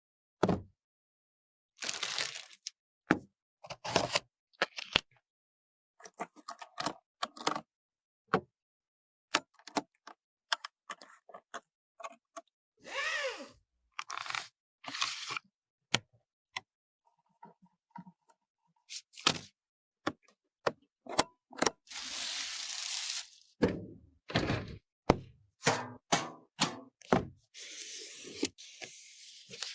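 Handling of PC parts and packaging during a build: many short clicks, knocks and thunks, with a few stretches of rustling or tearing, broken up by abrupt silences.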